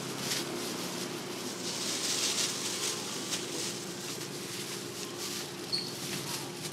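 Plastic-gloved hands rustling and brushing as they lay cabbage and noodles onto spring roll wrappers, in short soft bursts over a steady low hum.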